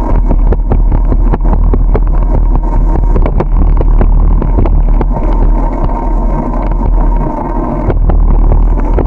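Heavy wind buffeting on the microphone of a camera riding on a moving bicycle, with a deep road rumble and frequent small clicks and rattles as the bike goes over bumps.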